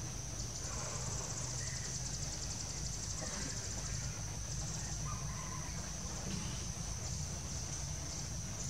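Insects droning steadily at a high pitch, with a fast pulsing chorus joining in for a couple of seconds about a second in, over a low steady rumble.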